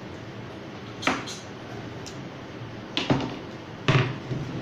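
Kitchen knife knocking on a cutting board while cutting green papaya: three sharp knocks about a second apart, the last the loudest, over a steady background hum.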